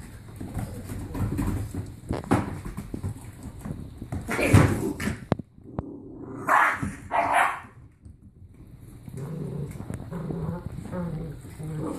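A litter of seven-week-old puppies barking and whimpering while they tug at and chew raw chicken backs, with paws scuffling on the wooden floor. The loudest noise comes just before halfway, and two sharp barks follow shortly after.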